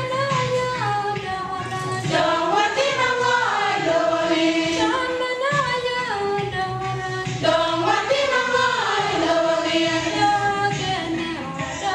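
A choir of women singing together in several voices, holding long notes and sliding between pitches in a flowing melody.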